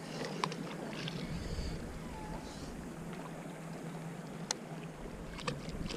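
Faint low rumble and hiss of open-air ambience, with a few sharp, small clicks from a fishing rod and reel being handled.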